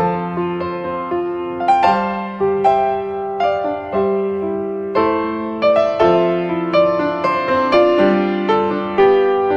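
Background piano music: a slow, gentle melody of single struck notes over sustained lower chords.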